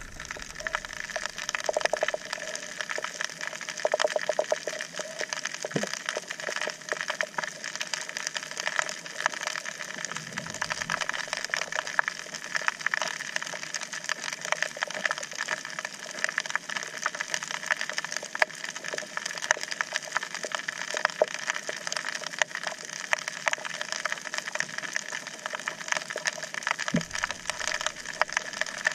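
Underwater crackle of a coral reef: a dense, steady stream of tiny clicks, typical of snapping shrimp. A couple of low thuds come through, about ten seconds in and near the end.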